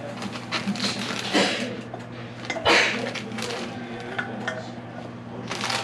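Oreo cookies being put into a plastic bag and taken from a glass cookie jar: crinkling plastic and light clinks in short bursts, the loudest rustle about two and a half seconds in.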